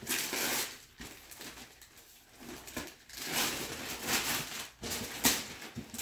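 Christmas wrapping paper being torn and crumpled as a present is unwrapped, in several rustling swells, with one sharp click near the end.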